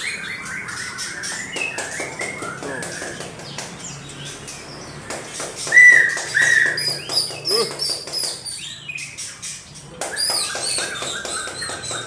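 Many caged white-rumped shamas (murai batu) singing and calling at once: a dense mix of overlapping whistled notes and chirps, with two loud clear whistles about six seconds in.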